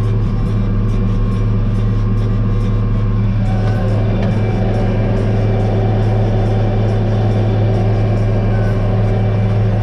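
Tractor engine running at a steady speed with a constant low hum.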